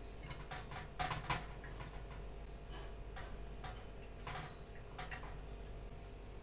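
A metal slotted turner and a silicone spatula clicking and scraping against a ceramic plate as crisp fried fish pieces are set down: a scattered series of light taps, the two loudest about a second in.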